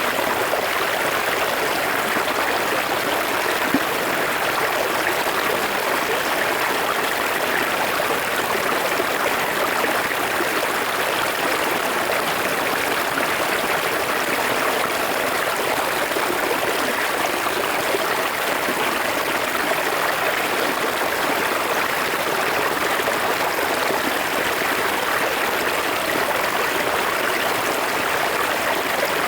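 River water flowing, heard up close: a steady, unbroken rush of running water.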